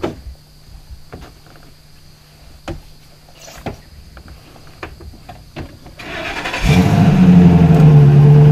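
A few scattered clicks and knocks, then about six seconds in a pickup truck's engine cranks and catches, running loudly and steadily with a low drone.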